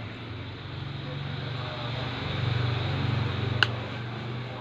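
A motor engine running steadily with a low drone that swells a little past the middle, and a single sharp click about three and a half seconds in.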